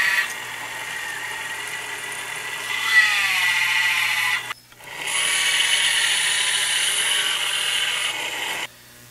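Small lathe running while a twist drill bores into brass rod, a steady high whine whose pitch sags about three seconds in as the cut loads it. The sound breaks off for a moment about halfway through, comes back brighter and hissier, and stops shortly before the end.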